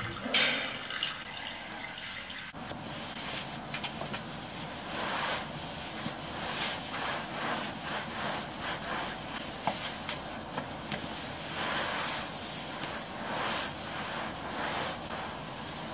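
Wet mop strands wiped back and forth across a hard floor in repeated swishing strokes, about one or two a second. In the first couple of seconds, water splashes as the sodden mop is handled in a steel sink.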